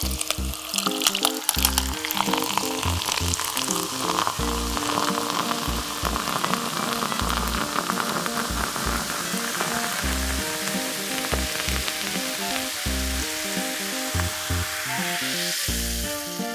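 Hot oil sizzling steadily as food deep-fries, most likely the breaded, Cheetos-coated mozzarella pork cutlet, with background music underneath.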